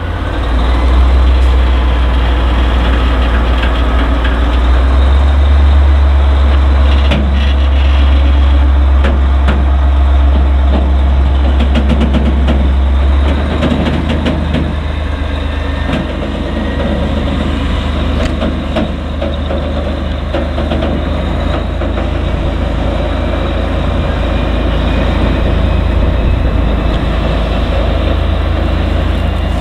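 Diesel shunting locomotive running under load as it hauls freight wagons along the track, with a deep, steady engine rumble that is loudest in the first half. Scattered clicks from the wheels and wagons come through, and a faint high squeal rises near the end.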